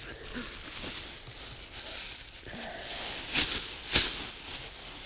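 Thin plastic bag rustling and crinkling as it is handled and a shot squirrel is put into it, with two sharper, louder crackles about three and a half and four seconds in.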